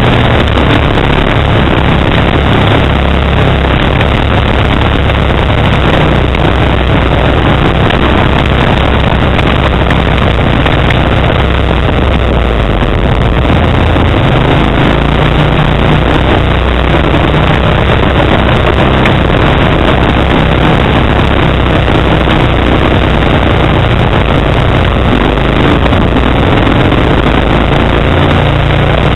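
Kawasaki Brute Force 750 ATV's V-twin engine with a Muzzy aftermarket exhaust, running loudly under way on a rough trail, its pitch rising and falling with the throttle.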